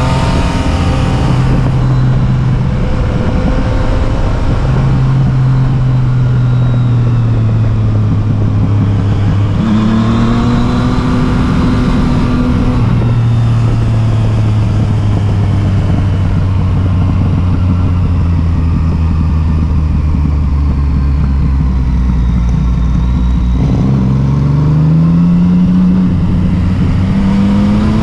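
A vehicle engine running steadily under way, its pitch climbing about ten seconds in, settling back down a few seconds later, then climbing again near the end as the vehicle changes speed and gear.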